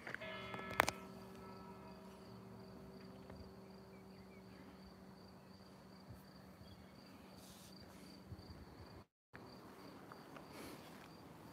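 Crickets chirping steadily, a fast, high, pulsing trill. Under them is a low hum that sets in at the start and fades away by about nine seconds in, and there is a single sharp click about a second in.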